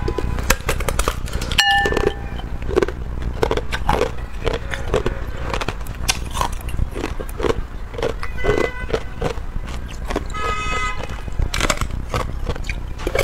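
Close-miked biting and chewing of a block of clear ice: sharp cracks as pieces snap off, then crunching in the mouth, repeating every half second to a second. A brief squeaky tone sounds about ten seconds in.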